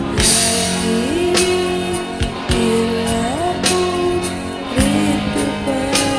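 Karaoke backing music: an instrumental passage with a guitar melody with sliding notes over drums.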